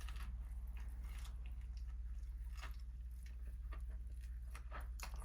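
Close mouth sounds of someone chewing a juicy fried chicken tender: faint, irregular wet clicks and smacks over a steady low hum.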